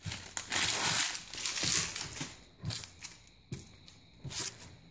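Clear plastic packaging crinkling and crackling as it is handled, dense for about the first two seconds, then a few shorter, lighter rustles and clicks.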